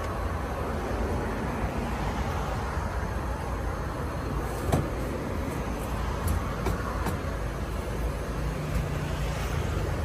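Steady low background rumble, with a few light clicks and knocks as coffee equipment is handled on a rubber bar mat; the sharpest knock comes about halfway through.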